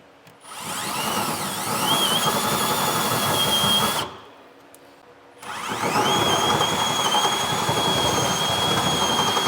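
Power drill running a step bit to enlarge a hole in a metal hat channel, in two runs of about four and five seconds. Each run whines up to speed, then holds a steady high pitch while the bit cuts.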